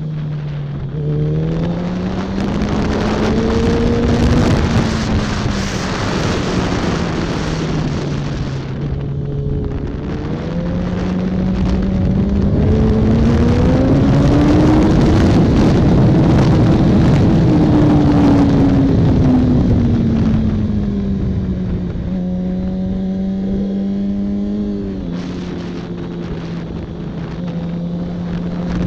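2007 Yamaha R1's inline-four engine at racing speed, heard onboard under heavy wind rush. The revs climb and fall through the corners, highest about halfway through, then hold steady near the end.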